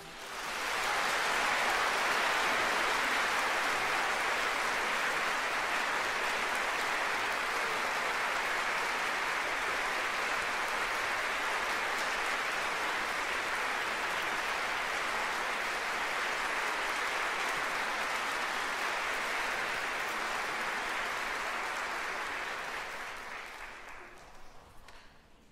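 Theatre audience applauding steadily, the clapping thinning and fading out near the end.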